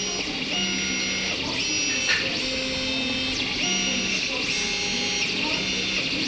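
Tevo Tornado 3D printer's stepper motors whining as the axes move. The pitched tones change every half second to a second, with short rising and falling glides between moves.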